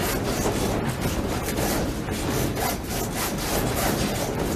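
A wooden Japanese room creaking and rattling as an earthquake shakes it: a continuous grinding rub of wood with many small knocks, as the sliding paper doors jostle in their frames.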